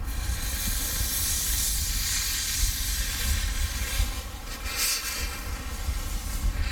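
Isle of Man Railway steam locomotive venting steam: a loud hiss that starts suddenly and carries on, over a steady low rumble.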